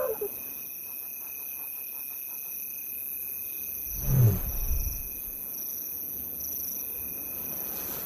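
Lioness giving a soft, low call about four seconds in, the contact call that tells her hidden cubs it is safe to come out. A short higher call comes right at the start. Night insects shrill steadily throughout.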